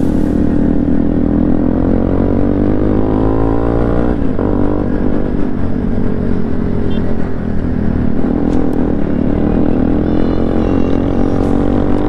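KTM Duke motorcycle's single-cylinder engine running at low speed on a rough dirt track, through its changed exhaust. The engine note rises for a couple of seconds, drops sharply about four seconds in, then rises and falls with the throttle.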